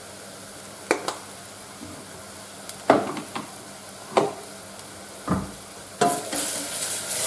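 Leek and bacon frying in a pan with a steady sizzle, while a utensil stirring them knocks against the pan several times. About six seconds in the sizzle grows louder.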